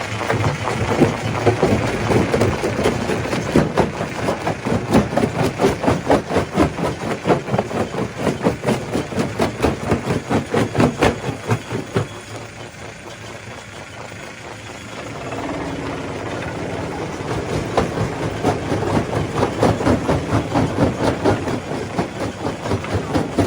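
Stone crusher machine crushing rock, with a rapid, irregular run of knocks and clatter over a steady mechanical running sound. About twelve seconds in, the knocking dies away for a few seconds, leaving a quieter running sound. It then picks up again.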